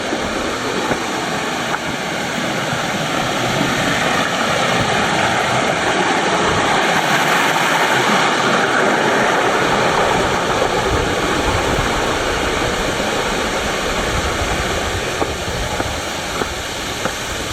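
Mountain waterfall rushing, a dense steady hiss of falling water that swells a little midway.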